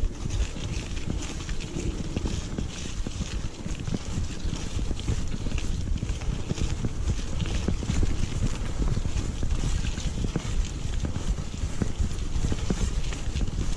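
Wind buffeting a camera microphone over a continuous rumble and rapid, irregular knocking and rattling, typical of a mountain bike ridden over a rough, rocky track.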